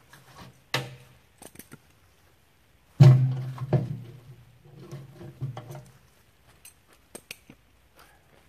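Firewood rounds tossed into a steel dump cart, each landing with a heavy thud that rings briefly in the cart bed. The loudest lands about three seconds in, followed by a second soon after and then smaller knocks of wood on wood.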